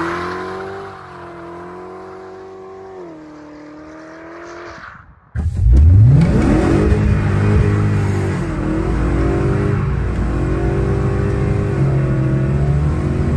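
Coyote 5.0 V8 in a Foxbody Mustang pulling away, its engine note fading with distance. About five seconds in, heard from inside the cabin, the engine revs up quickly under acceleration, then runs on with the note rising and falling as the car drives.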